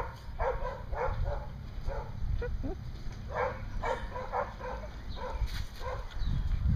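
A dog making short repeated sounds, about two a second, under a low rumble that swells near the end.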